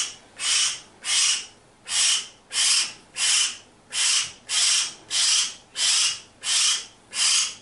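Young hill myna giving harsh, hissing begging rasps over and over, about one and a half a second.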